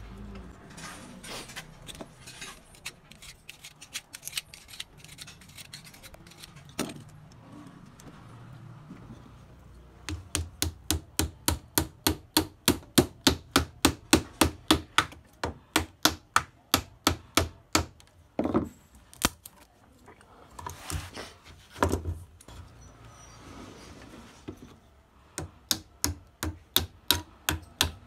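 Light, sharp tapping on an alternator stator core as a thin stick is worked into its slots during rewinding: scattered taps at first, then steady runs of about three to four taps a second, with a few louder knocks between the runs.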